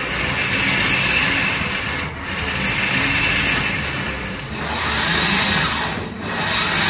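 Small DC motors driving 3D-printed plastic gear trains, a loud whirring grind that swells and dips in three or four surges.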